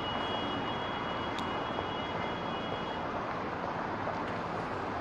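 Steady background noise of traffic, with a faint high steady tone over the first three seconds.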